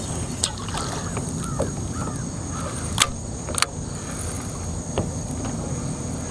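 A bird calling in a quick series of about six short, arching calls in the first half, over a steady low rumble, with a few sharp clicks later on.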